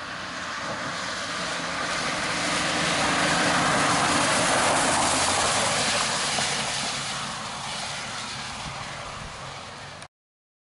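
Rescue pickup truck driving past on a wet road: tyre hiss on the wet pavement and engine noise swell to a peak about four seconds in, then fade as it drives away. The sound cuts off suddenly near the end.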